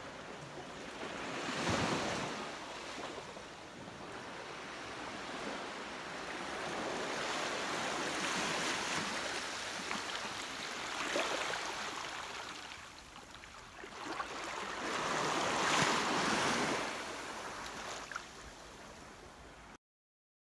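Small sea waves washing onto a beach, swelling and fading every several seconds. The sound cuts off suddenly just before the end.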